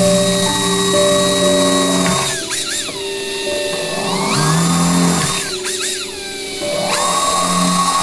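Hand-held power drill running with a high whine and a hiss, cutting into a metal aircraft panel. Its pitch sags and recovers twice, about two and a half and five and a half seconds in. Background music plays underneath.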